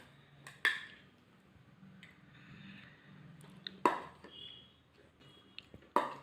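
Three sharp clicks of a spoon against a bowl, about three seconds apart, over faint eating sounds as the beetroot masala is tasted.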